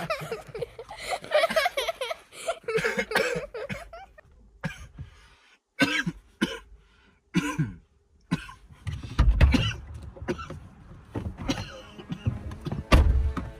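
A man coughing hard in repeated short fits, a faked coughing-up-blood act for a prank, with a couple of dull low thumps about nine seconds in and near the end.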